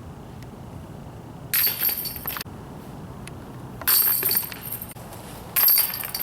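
Chains of a disc golf basket jangling three times, about two seconds apart, as discs strike them.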